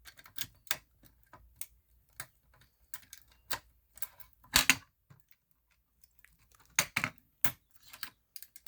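A Simplex fire alarm pull station being opened with its key and reset: scattered sharp metal clicks and rattles of the key in the lock and the cover and handle being worked. The loudest clicks come about halfway through, with a cluster about seven seconds in.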